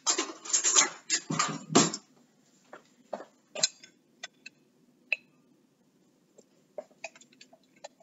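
Kitchen handling noises: about two seconds of rustling clatter, then scattered light taps and clinks of a metal utensil against a glass canning jar packed with potatoes as one potato is worked loose.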